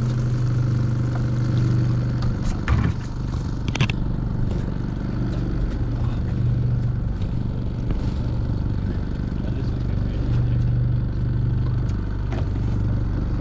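Outboard motor running steadily at trolling speed, a low even hum. Two sharp knocks about three and four seconds in.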